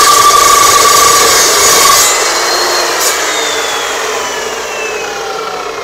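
Evolution S355MCS metal-cutting miter saw's 355 mm carbide-tipped blade cutting through a 1-inch round bar with a steady, loud grinding whine. About two seconds in the cut ends and the motor is switched off, and the blade winds down with a falling whine.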